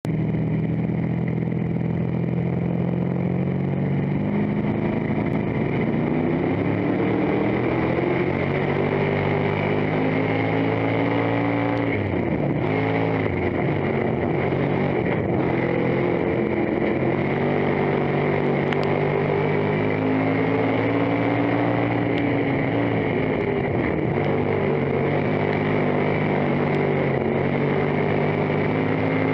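Stock car's engine heard from inside the cockpit under racing load. Its pitch climbs as the throttle opens on the straights and drops away when the driver lifts for the turns, lap after lap.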